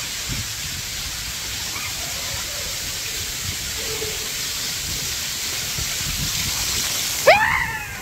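Waterfall rushing, a dense steady hiss of falling water. Near the end it cuts off abruptly, and a person's voice cries out with a swooping pitch.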